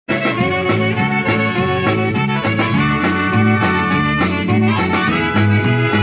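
Live band playing Latin dance music: two saxophones play a melody together over a repeating bass line and a steady beat.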